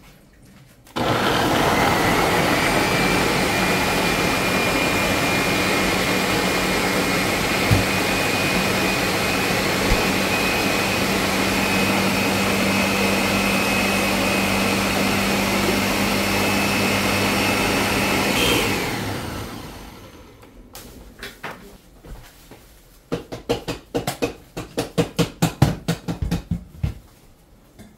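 Countertop blender running on carrots for carrot juice: the motor whine climbs quickly at switch-on, holds steady for about seventeen seconds, then winds down. A few seconds later comes a fast run of sharp knocks and clatter.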